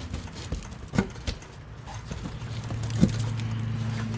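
Hands working on a car seat back: a few scattered knocks and clicks, the sharpest about one second in and about three seconds in. A low steady hum starts a little under three seconds in.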